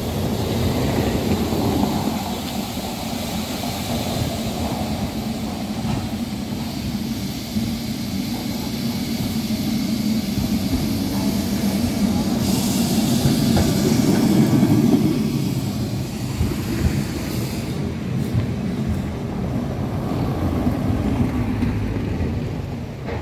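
Vintage Carris tram running along street rails, a steady rumble that grows louder around the middle, with a stretch of hissing noise from about halfway to three-quarters through.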